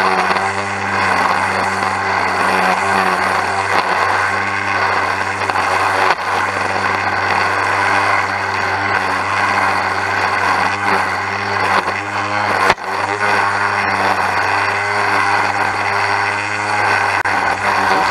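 EGO 56V battery-powered straight-shaft string trimmer running at full speed and cutting grass: a steady electric motor hum with the whir of the spinning line head, its pitch wavering slightly, with a couple of brief knocks.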